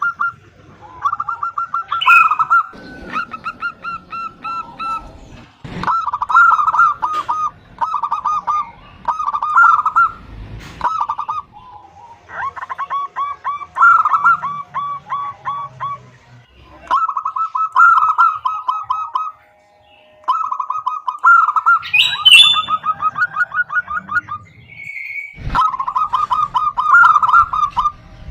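Female zebra dove (perkutut) calling: bursts of rapid, staccato notes, each burst lasting one to two seconds, repeated again and again with short pauses between. A few sharp clicks fall between the bursts.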